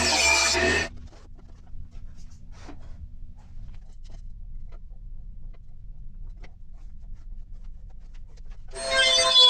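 A power tool running stops abruptly under a second in. A low rumble follows, with a few faint clicks and taps. Music starts near the end.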